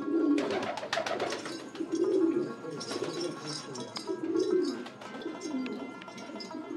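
Bagrami fancy pigeons cooing: repeated low, warbling coos, the loudest about every two seconds.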